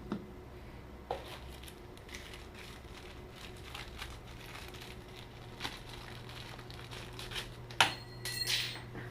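Plastic packaging crinkling and rustling with scattered small clicks as small accessories are handled, with a sharper click and a brief louder crinkle near the end. A steady low hum runs underneath.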